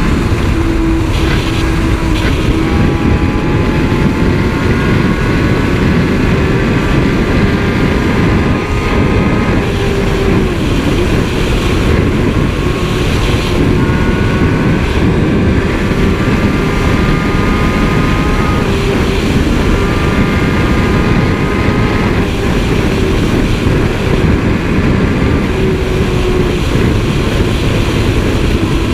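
Sportbike engine holding a steady high-speed cruise at around 130 mph, its note drifting only slightly in pitch, under a heavy, constant rush of wind noise.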